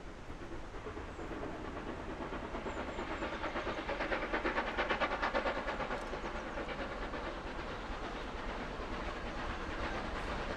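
Steam locomotive passing under steam, its exhaust beats coming in a quick, even rhythm that grows loudest about halfway through and then eases off.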